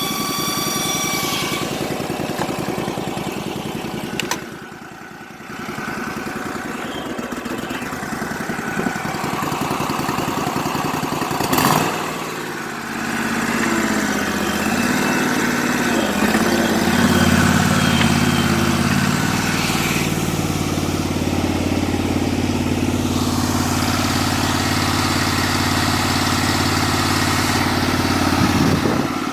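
Bandit ZT1844 stump grinder's 38-horsepower Kohler Command engine running, with a sharp knock near twelve seconds in. Just after that, the engine's pitch rises over a few seconds, then holds a steady, even note.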